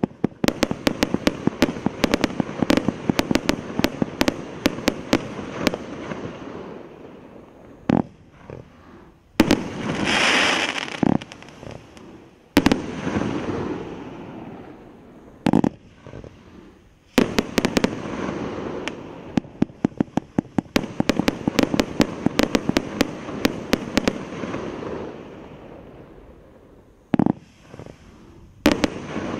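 Primed Pyrotechnics Raise the Stakes, a 232-shot 25 mm and 30 mm compound firework cake, firing long rapid volleys of shots, several a second, with a rolling echo behind them. About ten seconds in a hissing burst sounds, then a few single shots, before a second long rapid volley.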